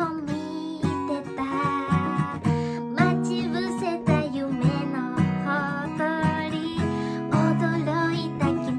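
A woman singing a pop ballad to her own strummed acoustic guitar.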